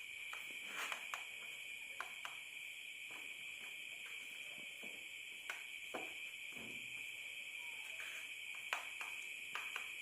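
Faint steady chorus of night insects, a continuous high-pitched shrilling, with scattered soft clicks.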